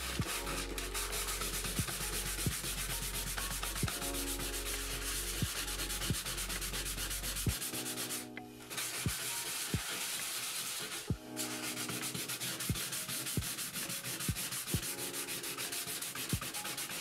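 220-grit sandpaper rubbed back and forth by hand over a cured JB Weld epoxy patch in a bathtub, in quick repeated strokes, levelling the epoxy and taking off its high spots. The sanding pauses briefly twice, a little past the middle.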